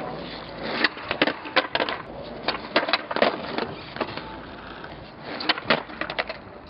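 Skateboard wheels rolling on concrete, broken by a series of sharp wooden clacks as boards are popped and land during flatground tricks.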